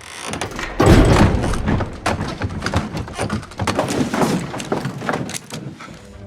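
A heavy thud about a second in, followed by a string of irregular lighter knocks and thumps.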